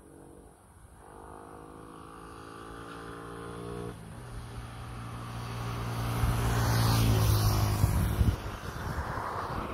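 A motor vehicle's engine draws near, growing steadily louder over several seconds. It passes loudest about seven to eight seconds in, then begins to fade.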